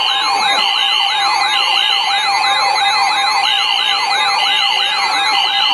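Several NOAA weather radios sounding their electronic alert alarms at once for a tornado warning drill. The mix is a siren-like rising sweep repeating about three times a second, a fast warbling high tone, a steady tone, and a high beep cycling on and off about once a second.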